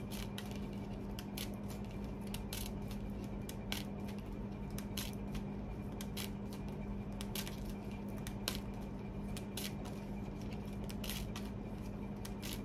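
A deck of oracle cards being shuffled by hand: irregular light clicks and snaps of card against card. A steady low hum runs underneath.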